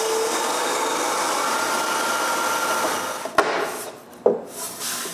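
Wood being sanded, a steady rough rubbing for about three seconds, then a sharp click and a wooden knock.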